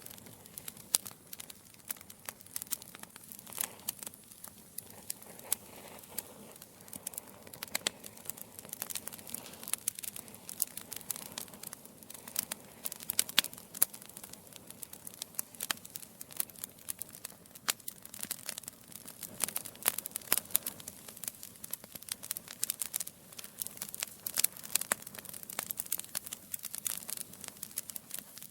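Wood fire burning in a fireplace: logs crackling and popping in quick, irregular snaps over a soft, steady hiss of flame.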